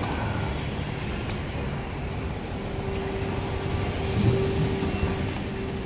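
Steady low rumble of road traffic and wind on the microphone, with a steady hum joining about two and a half seconds in and a brief louder thump a little after four seconds.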